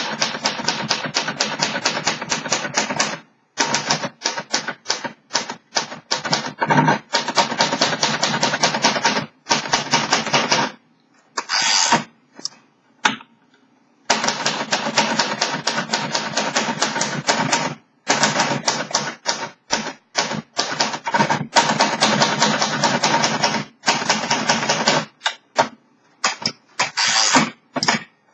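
1949 Royal Arrow manual typewriter being typed on: fast runs of sharp key strikes broken by short pauses.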